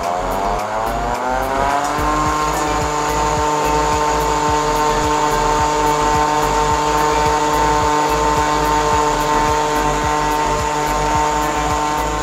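Electric stand mixer's motor running at speed 3, its wire whisk beating egg yolks in a stainless steel bowl. The whine rises in pitch over the first couple of seconds as the motor speeds up, then holds steady.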